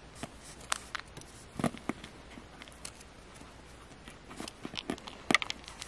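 Small plastic digging tool scraping and picking at a wet, crumbly dig block from a diamond-mining toy kit: scattered light scratches and clicks, with a quick run of sharper clicks near the end.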